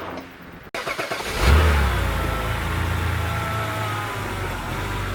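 A car engine catching about a second and a half in with a brief louder surge, then running steadily.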